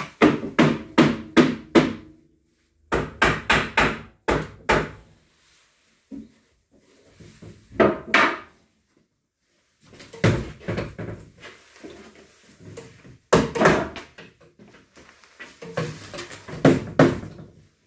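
Quick runs of hard knocks on wood, like hammer blows, about four strikes a second with pauses between the runs.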